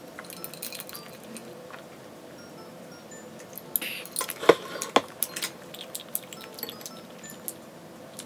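Metal straw clinking against a drinking glass: two sharp clinks about halfway through, over soft background music.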